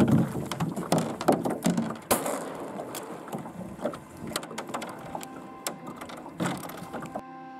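Irregular knocks and clunks of a small rowboat on choppy water: waves slapping the hull and gear knocking about, loudest in the first couple of seconds. Music takes over just before the end.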